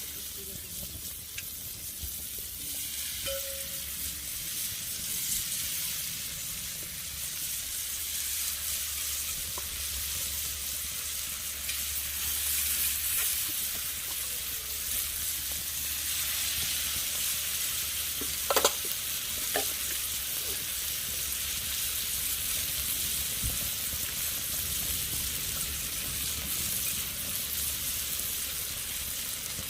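Pork slices sizzling and frying steadily on a thick iron griddle, with a couple of brief sharp clinks about two-thirds of the way through.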